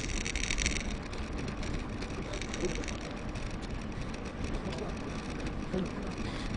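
Wind buffeting the action camera's microphone with tyre noise from a mountain bike rolling along, played back sped up, with a brief burst of brighter hiss in the first second.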